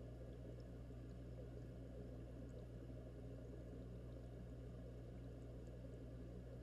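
Aquarium air stones bubbling, heard underwater from inside the tank: a muffled, steady low hum and bubbling wash with a few faint ticks.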